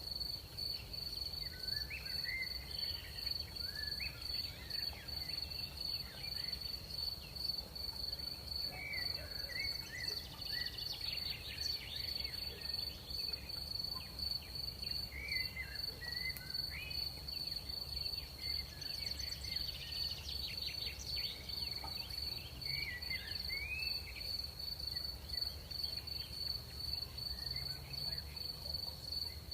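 Crickets trilling in one steady high note, with scattered short chirps around it, over a low hum of night air.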